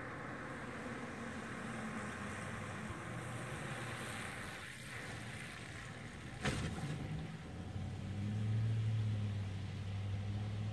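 Steady background noise with a low vehicle engine hum that grows louder in the second half. One sharp click about six and a half seconds in.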